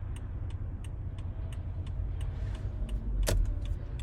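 Car idling with a steady low rumble inside the cabin, its indicator ticking about three times a second, with one louder click a little after three seconds in.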